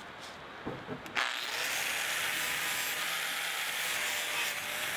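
Angle grinder with a flap disc grinding the edges of plasma-cut steel parts to clean up the cut edges. The steady grinding hiss starts about a second in.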